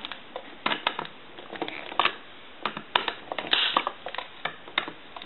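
Irregular clicks, taps and short scraping rustles of small plastic and metal parts as a Western Electric 500 telephone's amplified handset is handled and reassembled.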